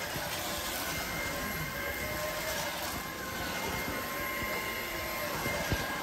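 AEG Ultimate 8000 cordless stick vacuum running on carpet with its carpet nozzle, a steady motor whine over rushing suction air as it picks up plant debris.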